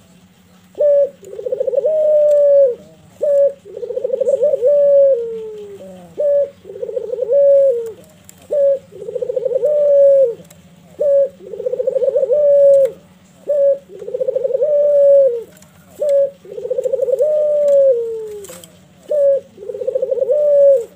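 Barbary dove (puter) cooing repeatedly: about eight two-part coos, each a short note followed by a longer rolling coo that falls away at its end, in a steady rhythm.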